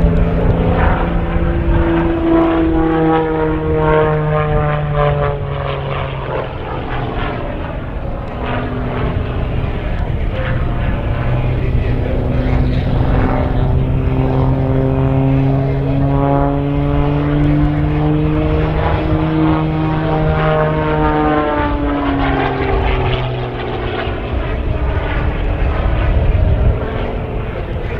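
The MXS-RH aerobatic monoplane's piston engine and propeller running hard overhead through aerobatic manoeuvres. The pitch slides up and down several times as power and airspeed change.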